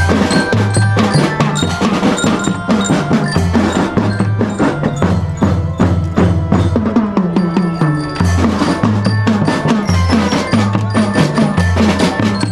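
A school drum band playing a song: snare and bass drums beat a steady, dense rhythm under a bright bell-lyre (glockenspiel) melody, with a held low bass line underneath.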